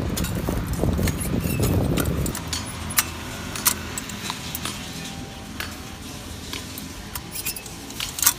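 Irregular sharp metallic clicks and clinks from a hand-held pole corn planter being jabbed into dry ground. A low rumble runs under them for the first two seconds and then stops.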